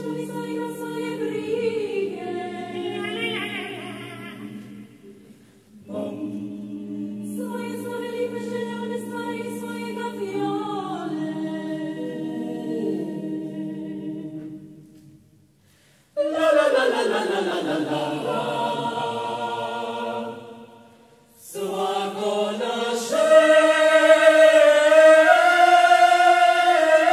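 Mixed choir of men and women singing a cappella in four phrases broken by short breaths; the last phrase swells to the loudest point, holding full chords near the end.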